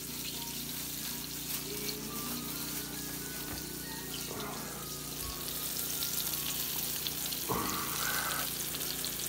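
Floured taimen steaks sizzling in hot oil in a frying pan, a steady hiss, over a faint steady low hum.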